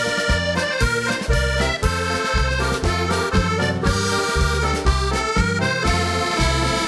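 Accordion-led Alsatian folk dance music with a steady bass beat of about two notes a second.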